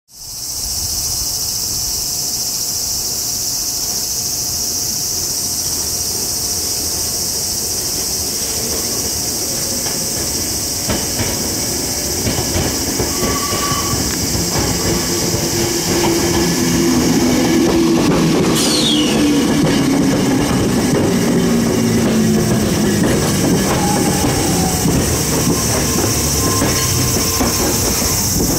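Hakone Tozan Railway test train, a 3000 series car coupled to a 2000 series pair, approaching on a tight curve and passing close by. Its running and motor noise grows from about halfway and is loudest in the last third, with wheels squealing on the curve and a brief falling squeal about two-thirds of the way in. A steady high-pitched buzz runs underneath throughout.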